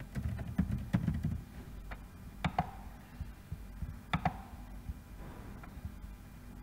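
Two sharp computer mouse clicks about a second and a half apart, over a low steady electrical hum, with a few low muffled knocks in the first second or so.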